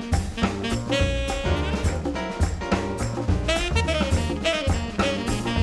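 Background jazz music: saxophone and brass over a swinging drum-kit beat.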